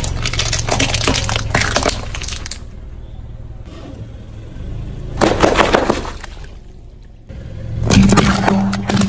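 Objects crushed under a vehicle's tyres, crunching and breaking in three bursts: a long one at the start, a shorter one a little past the middle and another near the end, over the vehicle's low engine hum.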